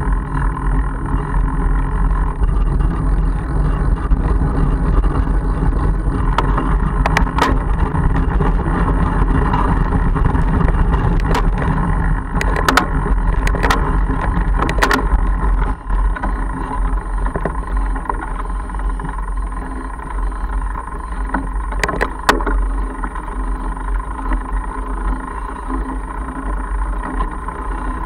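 Mongoose Argus fat bike rolling along a gravel road: a loud, steady rumble of wind on the microphone and tyre noise. Several sharp clicks and knocks from the bike going over bumps, most between about 7 and 15 seconds in and a pair a little past the middle.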